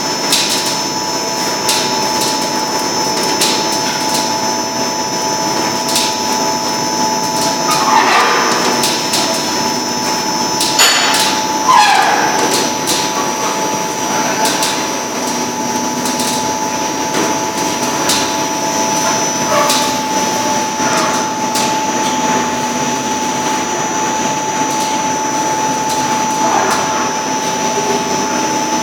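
Spiral duct forming line running: a steady machine whine over a noisy bed, with scattered metallic clicks and knocks, and a couple of louder scraping, falling-pitch sounds about eight and twelve seconds in as the sheet-metal strip is worked.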